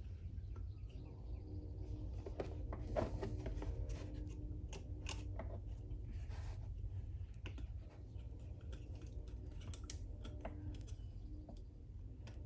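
Small, irregular metallic clicks and scrapes as a spiral-lock retainer is worked by hand into the groove of a piston's wrist-pin bore, the sharpest click about three seconds in, over a low steady hum.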